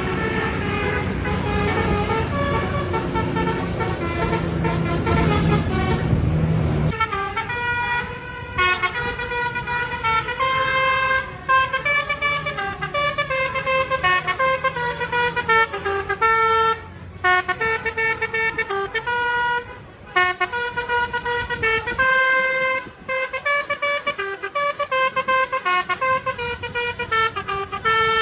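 A bus engine runs low and heavy. About seven seconds in, a basuri telolet musical horn starts playing a tune of short notes that step up and down in pitch, with brief breaks between phrases.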